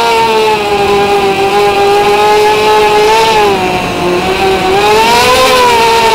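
Tricopter's brushless motors and propellers whining in flight, a steady pitched drone that drops in pitch about three and a half seconds in and climbs back about a second later as the throttle changes.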